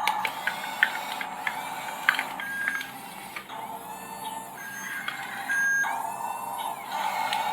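Battery-powered toy bulldozer running: its small motor and gears whir steadily with scattered clicks, along with short electronic beeping tones.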